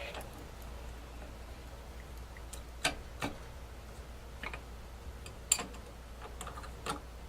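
Scattered light wooden clicks and taps, a handful over several seconds with the sharpest about five and a half seconds in: a new wooden shutter slat knocking against the shutter frame as it is test-fitted.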